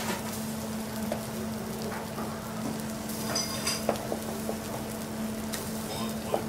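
Sizzling on a hot teppanyaki steel griddle as a mound of cooked white rice is dropped onto it and heats, with a few short sharp clicks. A steady low hum runs underneath.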